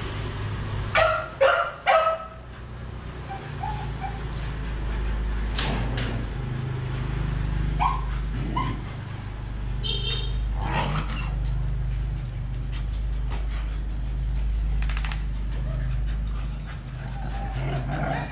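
Phú Quốc ridgeback dogs barking: three loud, sharp barks in quick succession about a second in, then scattered short, fainter yips and whimpers over a steady low hum.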